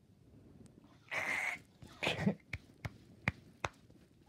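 Handling noises: a short hissing rustle about a second in, another brief rustle, then a run of sharp clicks and taps.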